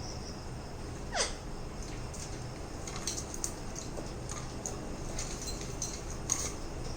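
Pet parakeets feeding: one short call that drops quickly in pitch about a second in, then many small high clicks and crunches of beaks on food, with a louder click near the end.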